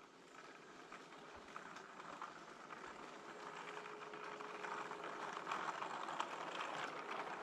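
LGB G-scale model train running on garden track: a faint steady hum from the locomotive's motor and gears, with small clicks from the wheels on the rails, growing louder as the train approaches.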